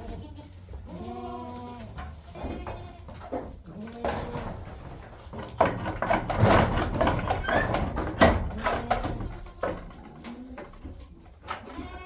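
Goats bleating repeatedly, about half a dozen short calls. In the middle comes a louder stretch of knocks and rustling.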